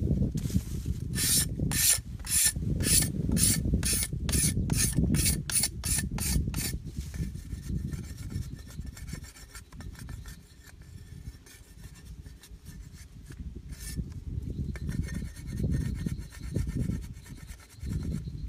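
Steel cleaver blade scraping along a bamboo strip, rasping strokes about three a second over a low rumble. After about seven seconds the strokes turn softer and less distinct.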